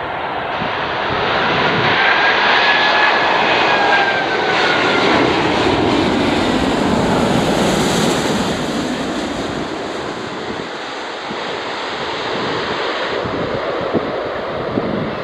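Airbus A380-800 four-engine jet airliner flying low on final approach, its engines giving a loud roar with a whine that falls in pitch as it passes. The sound is loudest as it goes overhead, then eases as the jet descends toward the runway.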